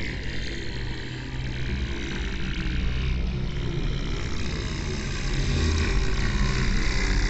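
Buzzing drone sound effect: a continuous low mechanical hum with a hissing upper layer, moving and growing gradually louder toward the end.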